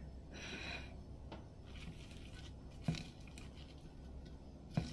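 A fork cutting into crisp, crumb-coated fried cod on a plate: a short, faint crackle of the crust about half a second in, then two sharp clicks of the fork against the plate, the second near the end being the louder.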